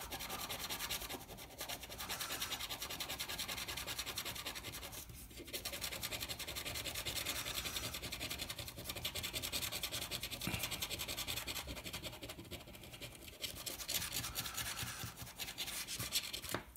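A coin scratching the latex coating off a scratch-off lottery ticket: fast rasping back-and-forth strokes, broken by a few short pauses.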